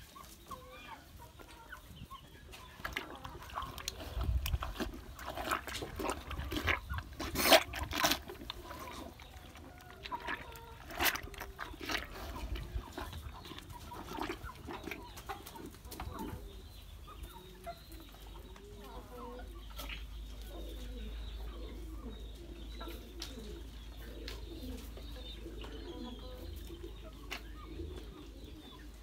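Chicken clucking in short, soft calls, with scattered clicks and knocks from a cow feeding at a basin. The loudest knock comes about seven and a half seconds in.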